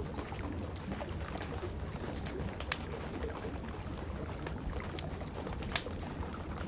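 Campfire crackling, with sharp pops of burning wood (the loudest about a third of the way in and again near the end), over a steady rush of rain.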